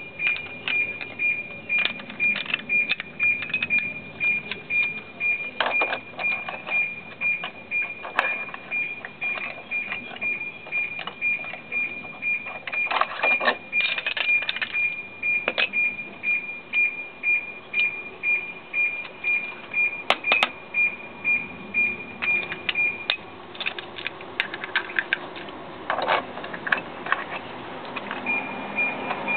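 Ratchet wrench clicking in steady back-and-forth strokes, about two a second, working on the variator nut of a 50cc scooter, with a few sharper metallic knocks among them. A steady high pulsing tone sounds in the background and drops out for a few seconds near the end.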